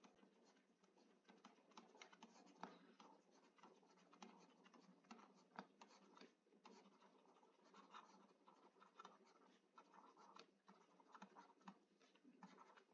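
Faint, irregular taps and short scratches of a stylus writing by hand on a tablet screen.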